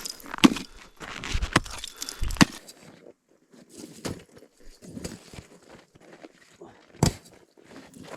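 Axe chopping ice: three sharp strikes in the first two and a half seconds, then softer crunching and scraping of broken ice, and one more hard strike about seven seconds in.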